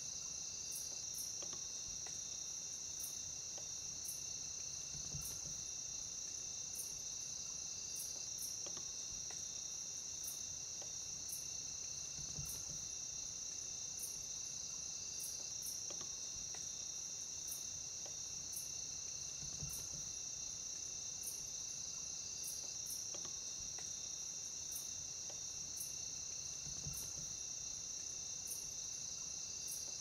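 Night-time forest insect chorus: crickets trilling in one steady high-pitched drone, with a higher, sharper ticking repeating about once a second. A faint low pulse recurs roughly every seven seconds.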